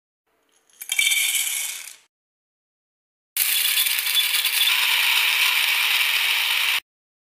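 A 304 stainless steel flat-blade electric powder grinder runs for about three and a half seconds as a steady, high, noisy whir, starting and stopping abruptly, while it chops hard dry kernels into powder. About a second in, before it starts, there is a shorter rattling noise that fades out after about a second.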